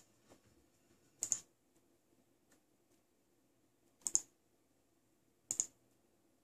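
Computer mouse button clicked three times, a second or more apart, each click a quick press-and-release pair, over a faint steady hum.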